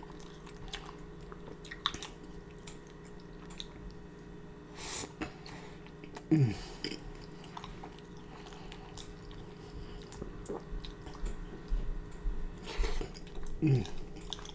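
Close-up open-mouthed chewing of a messy sloppy joe sandwich: wet smacking and squishing clicks, with a short falling hum from the eater twice.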